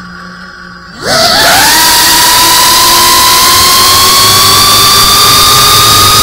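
FPV quadcopter's motors starting with a click and a low hum, then about a second in spinning up fast into a loud high whine with rushing propeller noise as the drone takes off. The whine holds steady and creeps slightly higher in pitch as it climbs. It is heard through the drone's own onboard camera.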